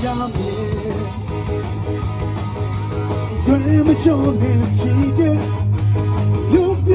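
Live rock band playing electric bass, electric guitars and a drum kit, with a steady bass line. A voice sings over it from about halfway through.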